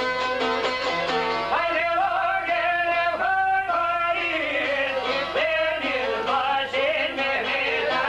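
Albanian folk song: plucked çifteli and other long-necked lutes with a violin play on, and about a second and a half in a man's voice enters, singing long, wavering, ornamented held notes over them.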